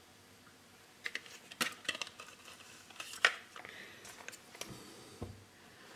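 Scattered light clicks and taps of handling, starting about a second in, as a plastic head-mounted magnifier visor is pulled on and settled and the circuit board is handled on the desk.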